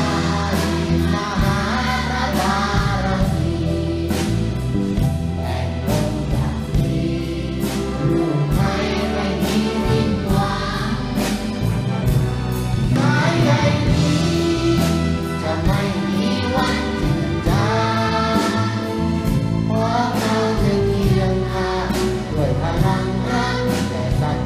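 Children's choir singing a song with full orchestra accompaniment over a regular beat.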